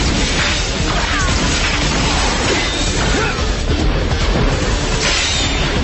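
Animated fight sound effects: a dense run of hits, crashes and whooshes over loud background music.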